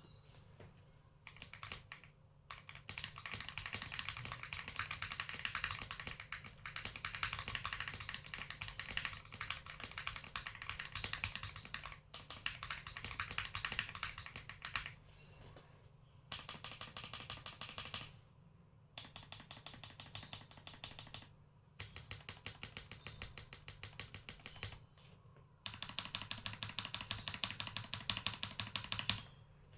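Typing on a 65% mechanical keyboard with lubed Akko CS Rose Red linear switches, lubed stabilisers, a three-layer tape-modded PCB and case foam. The key clacks come in fast runs, several bursts broken by brief pauses.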